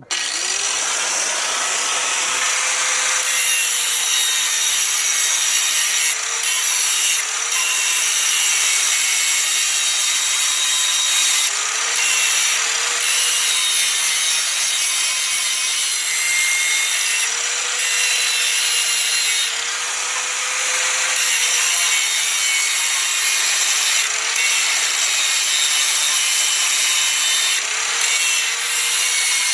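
Angle grinder spinning up and grinding metal: a steady gritty roar with a motor whine that dips and recovers as the disc is pressed into the work.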